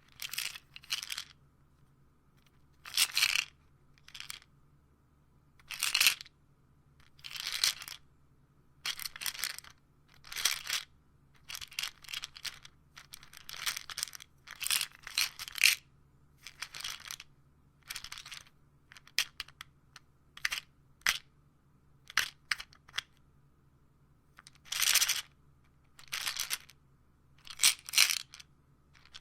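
Pills rattling inside a pill bottle in a long run of short, separate bursts, roughly one a second, with brief quiet gaps between.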